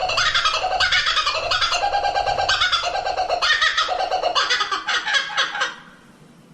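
Kookaburra calling, a loud, rapid run of repeated laughing notes that fades out near the end.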